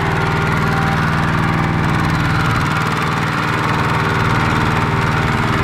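Kubota walking tractor's single-cylinder diesel engine running steadily with an even, rapid firing beat as it pulls a loaded rice trailer through mud.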